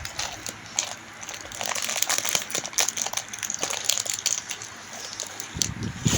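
Rustling and crinkling of packaging being handled, with many small clicks and ticks throughout.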